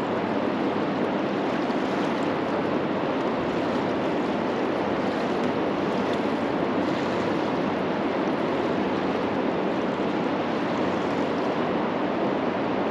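Steady rushing of river water, a continuous even noise that does not rise or fall.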